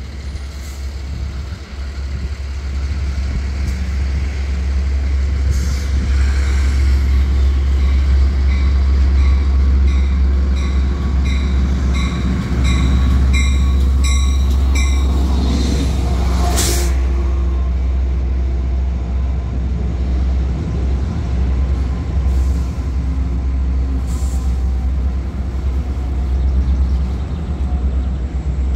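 Long Island Rail Road DM30AC diesel locomotive 508 pulling into a station with its bilevel coaches. The engine's rumble builds as it approaches, and its bell rings about twice a second for several seconds midway. A short burst of air hiss from the brakes comes about 17 seconds in, then the coaches roll past.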